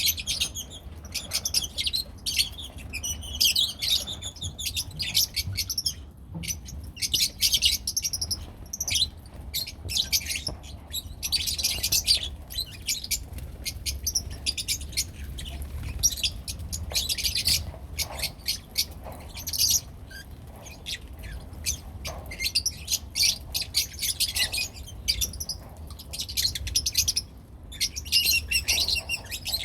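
Lovebirds chattering in a cage: continuous rapid, high-pitched chirps and tweets from several birds, with a faint low hum underneath.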